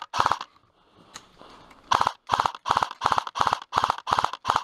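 AK-style airsoft electric rifle firing short bursts: one just after the start, then, after a pause of about a second and a half, a run of eight bursts at about three a second.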